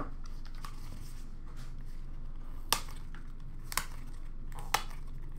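Light handling of trading-card packaging: faint crinkling, with three sharp clicks about a second apart, over a steady low room hum.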